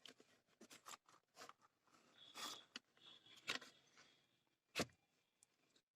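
Faint clicks and light scrapes of small tools handling a circuit board, a few separate touches over a near-silent background.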